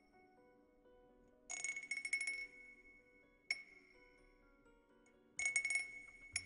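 Wind-chime cup ASMR trigger: two clusters of bright, tinkling glassy chimes, one about a second and a half in and one near the end, with a single ringing clink between them. Each ring holds a high tone that fades slowly. Soft sustained background music sits underneath.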